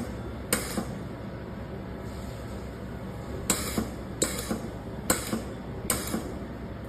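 Automatic laser welding machine running: a steady hum with several sharp clicks at uneven intervals, a pair just after the start and a cluster between about three and a half and six seconds in.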